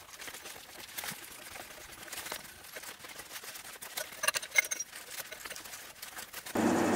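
A tap cutting threads into holes in a metal motor bracket on a milling machine: faint, irregular clicking and scraping, with a cluster of sharper ticks about four seconds in. Just before the end, a loud steady machine noise with a low hum starts abruptly.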